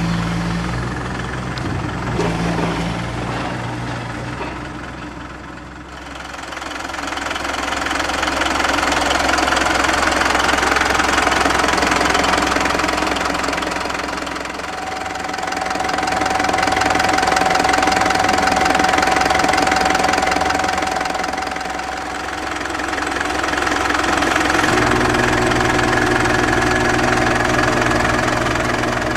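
Mitsubishi Canter's 4M42T four-cylinder turbodiesel idling with a steady diesel clatter, its loudness rising and falling slowly. A thin steady whine runs alongside through the middle stretch.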